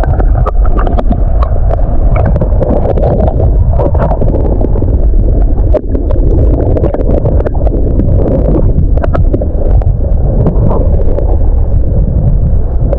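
Stream water gurgling and splashing close to the microphone, over a steady low rumble, with many small clicks and ticks throughout.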